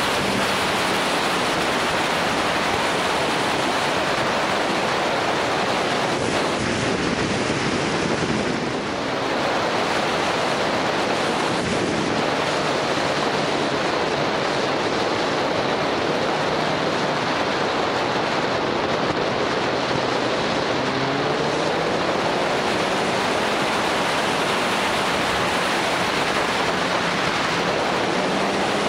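Steady rushing wind noise over the microphone of a camera mounted on a moving motorcycle, with the bike's engine faintly audible underneath; the engine note rises briefly about twenty seconds in.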